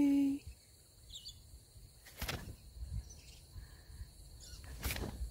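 Quiet rural outdoor ambience: a steady high insect hum, a brief bird chirp about a second in, and two soft rustles in the grass.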